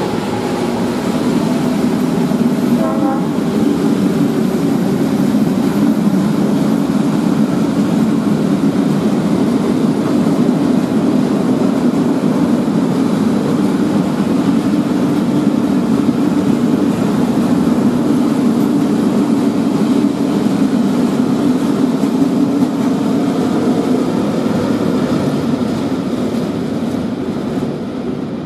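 Freight train of hopper wagons hauled by diesel locomotives rolling past, with a loud, steady rumble and clatter of wheels and wagons. A brief higher tone sounds about three seconds in.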